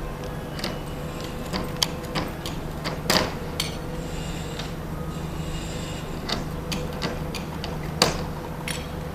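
Irregular clicks and knocks from metal fastening work on facade panels over a steady low hum, with the loudest knocks about two, three and eight seconds in.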